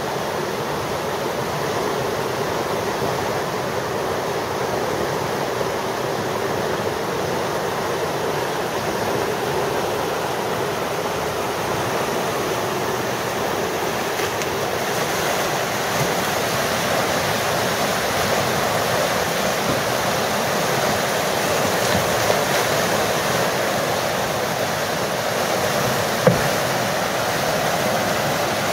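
Whitewater rushing steadily through the rapids of a canoe slalom course, with one brief sharp knock near the end.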